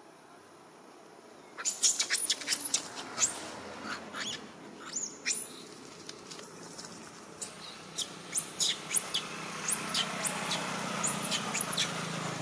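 A young long-tailed macaque squealing over and over: a quick run of very high-pitched calls, several a second, each rising and falling in pitch, that starts suddenly about a second and a half in.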